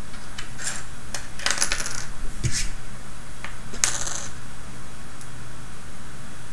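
Small plastic construction-kit parts clicking and clattering as they are picked out of a pile and set down: a scattering of light clicks, a cluster about one and a half seconds in and the loudest one about four seconds in.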